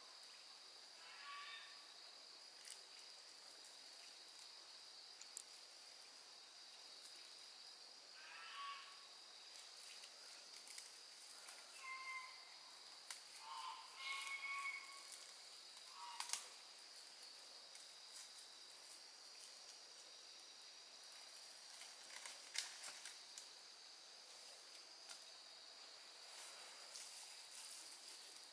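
Faint outdoor ambience: a steady high-pitched insect drone, with a few short animal calls and occasional sharp clicks.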